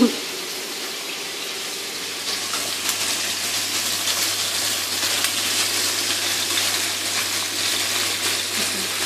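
Chicken wings sizzling in oil in a nonstick wok, a steady hiss that grows louder about two seconds in, with light clicks of a utensil turning the pieces.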